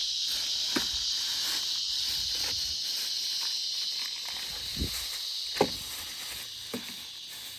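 Steady high-pitched chorus of insects trilling, easing off slightly about halfway through, with a few light knocks, the loudest about five and a half seconds in.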